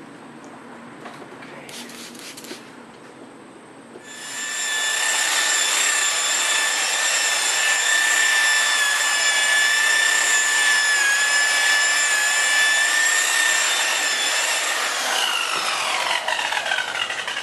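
Electric polishing buffer starting up about four seconds in and running at a steady high whine as it polishes out scratches in the paint, then spinning down with a falling pitch near the end. Faint rubbing before it starts.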